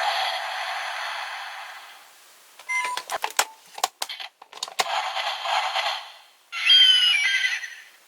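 DX Zyuoh Changer Final toy playing animal sound effects through its small tinny speaker, with a short beep and a run of clicks from its buttons between them, and a cry with falling pitch near the end.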